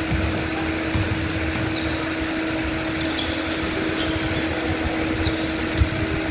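Pickup basketball on a hardwood gym court: irregular ball thumps and a few short sneaker squeaks over a steady hum, with one sharper thump near the end.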